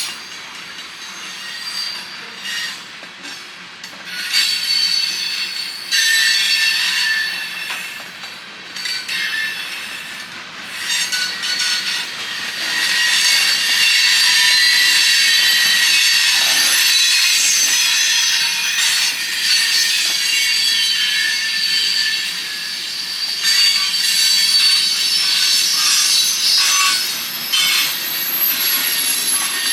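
A train rolling past with its wheels squealing shrilly against the rails, several high tones that waver and overlap. The squeal swells to its loudest about halfway through, then eases and rises again.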